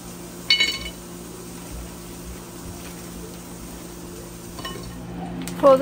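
Frozen vegetable pieces being handled and dropped into a glass bowl, with one sharp ringing clink of glass about half a second in. A steady low hum runs underneath.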